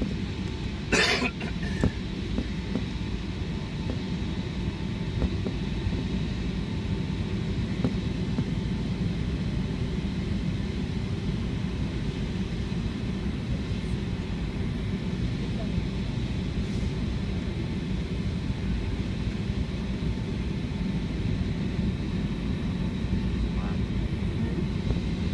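Steady low rumble inside the cabin of a Boeing 757 taxiing after landing, from its idling engines and cabin air, with a faint high whine over it. A short sharp noise cuts in about a second in.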